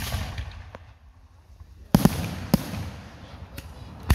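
Aerial fireworks bursting overhead. A loud bang comes about two seconds in and a second sharp report half a second later, each trailing off, with another bang right at the end.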